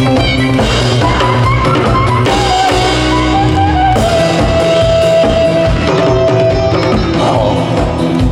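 Instrumental break of an upbeat trot song: drums keep a steady beat under guitar and a held melody line, with no singing.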